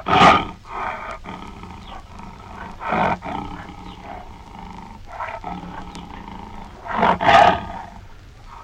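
Lion roaring: three loud roars about three seconds apart, the last one longer than the other two.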